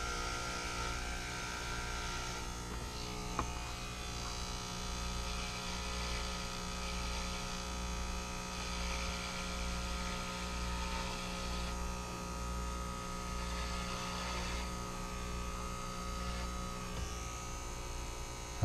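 Corded electric hair clippers buzzing steadily while cutting through bundled long hair close to the scalp. A rougher rasp comes and goes over the hum as the blades chew through the hair.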